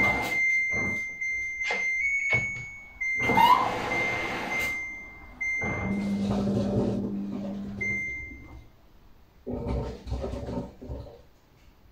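Samsung front-loading washing machine running a wash: wet laundry tumbling and sloshing in the drum with knocks and clicks, over a high electronic tone from the machine that breaks off now and then. A low hum comes in for about two seconds past the middle, and the sound dies down near the end.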